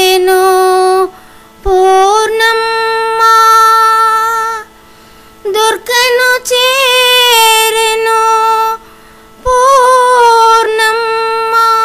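A woman singing the long drawn-out closing notes of a Telugu song: three sustained phrases with a wavering pitch, each broken off by a short pause, over a faint steady drone.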